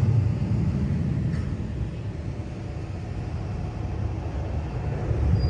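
Jet aircraft taking off on afterburner out of sight: a deep, distant rumble that eases off in the middle and swells again near the end.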